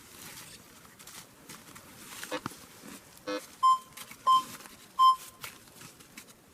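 Metal detector giving three short, identical beeps about two-thirds of a second apart, the signal for a metal target under the coil. A couple of faint knocks come before the beeps.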